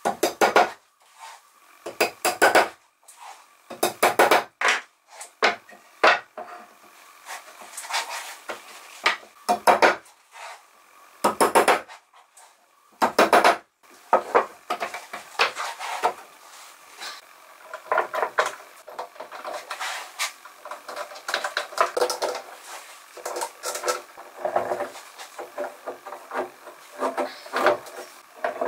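Irregular knocks, scrapes and clatters of pine boards and hand tools being handled on a workbench: separate sharp bursts at first, turning into denser, busier clattering about halfway through.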